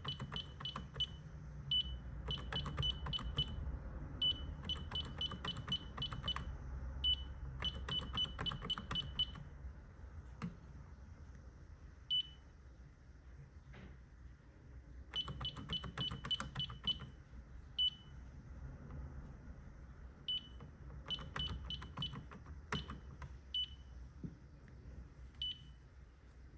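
Ademco alarm keypads beeping as they start up after the panel is powered on: runs of short, rapid, high-pitched beeps broken by pauses of a second or more, over a low steady hum.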